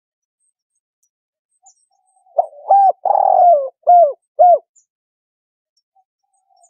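Spotted dove cooing: a single phrase of about five coo notes lasting some two seconds, with a longer drawn-out note in the middle that falls in pitch at its end, then quiet.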